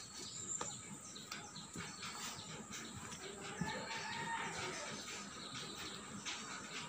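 A rooster crowing once, faint, with a rising-then-falling call from about three seconds in, over light scattered knocks and scuffs of footsteps.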